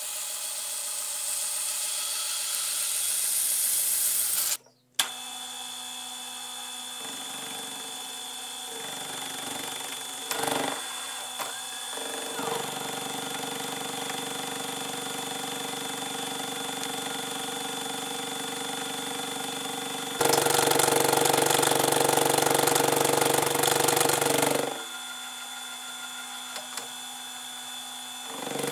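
Belt grinder running while a metal bar is pressed against the belt. After a short break, a milling machine spindle runs with an end mill cutting along a metal bar held in a vise, a steady machining sound with a constant high whine, which gets louder and harsher for about four seconds near the end.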